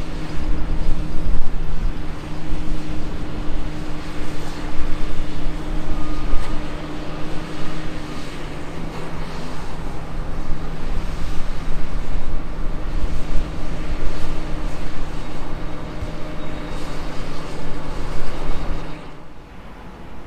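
Heavy diesel engine of a Komatsu PC360LC excavator running steadily with a low hum and rumble. The sound drops away sharply near the end.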